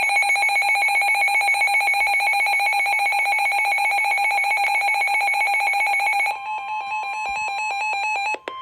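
Emergency Alert System alert tones. A loud, rapidly pulsing electronic alarm tone sounds for about six seconds. It gives way to a different beeping pattern, and a steady single tone begins right at the end.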